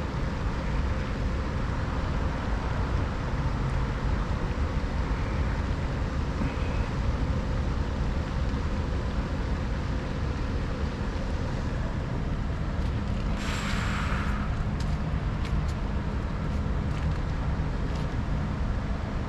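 Rooftop package air-conditioning unit running: a steady low rumble with hiss over it, and a brief sharper hiss about two-thirds through.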